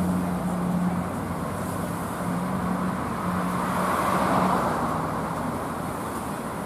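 Road traffic on a city street: a car passes, swelling and then fading about four seconds in, over a steady low hum.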